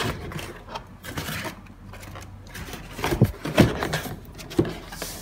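A cardboard shoe box being handled and turned, its surfaces rubbing and scraping, with a few sharp knocks in the second half.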